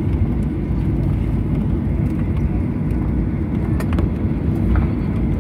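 Cabin noise inside a Boeing 737 taxiing just after landing: a steady low rumble from the turbofan engines and the wheels rolling on the taxiway.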